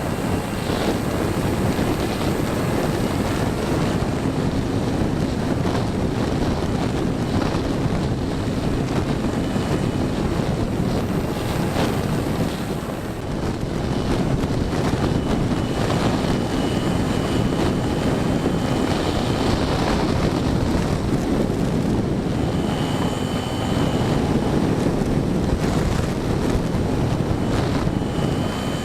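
Steady rush of airflow over the microphone of a camera mounted under the wing of an E-flite Apprentice STS 1.5m RC trainer plane in flight. Under it runs the drone of its electric motor and propeller, with a thin high tone that comes and goes.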